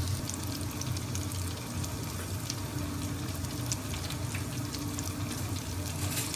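A battered chicken nugget deep-frying in hot oil in a deep fryer's wire basket: a steady sizzle with many small crackles and pops, over a steady low hum.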